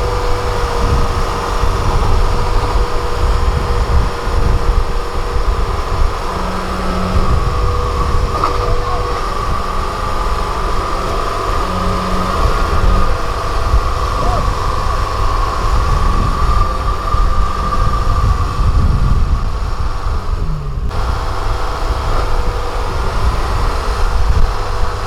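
Kubota DC70 Plus combine harvester running steadily: a low diesel rumble with a constant high whine from its drive.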